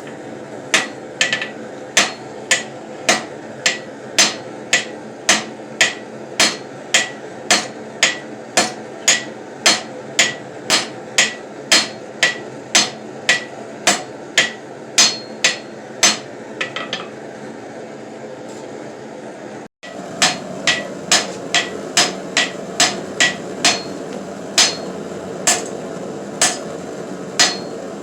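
Hand hammer forging steel on an anvil: a steady run of blows at about two a second, each with a short metallic ring. The hammering pauses for a few seconds a little past the middle, then resumes at the same pace.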